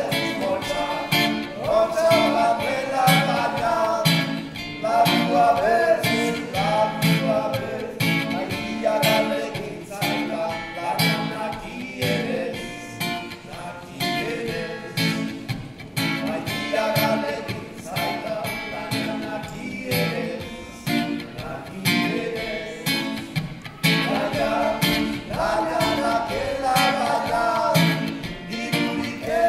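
Acoustic guitar strummed as accompaniment to male singing of a Basque song in the Souletin style.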